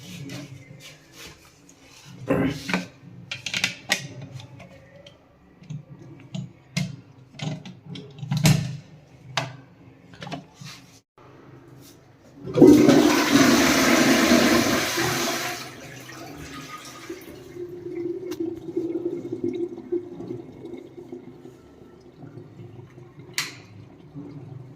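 Scattered clicks and knocks, then about halfway through a wall-hung toilet with a Parryware concealed cistern flushes: a loud rush of water for about three seconds, followed by a quieter steady running of water.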